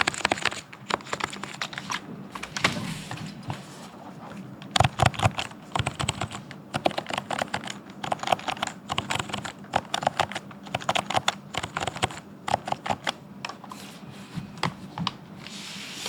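Electro-capacitive (Topre-style) keyboard being typed on at a steady, fluent pace: a dense, irregular run of key presses with a few brief slower moments.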